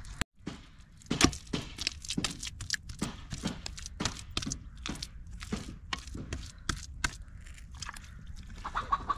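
Wet clay and straw squelching and slapping as bare hands press and smooth it onto the inside wall of a metal bucket oven: a quick, irregular run of short wet smacks.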